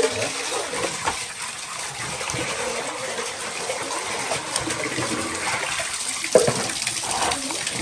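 Water running and pouring steadily with an even rushing splash.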